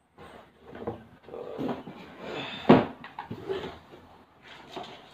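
Cardboard box and packaged items being handled: a series of rustles and knocks, with one sharp knock near the middle.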